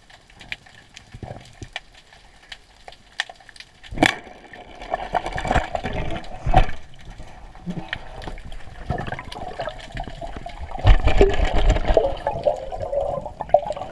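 Water splashing and sloshing in irregular bursts, set off by a sudden knock about four seconds in; the first few seconds are quieter.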